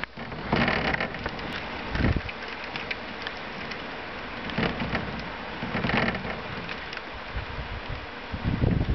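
Steady hiss of rain during a thunderstorm, with several short low thumps and swells, the loudest near the end.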